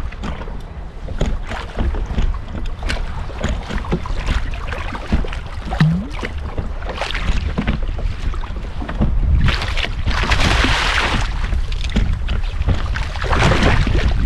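Wind buffeting the microphone with water sloshing against a kayak hull, scattered small knocks, and two longer rushes of splashing water near the end.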